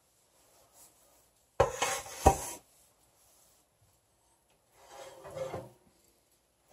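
Metal cake pans being handled at the oven of a Kitchen Queen wood cook stove: a clatter with two sharp knocks about two seconds in, then a scraping rub near the end as a pan is slid out over the oven rack.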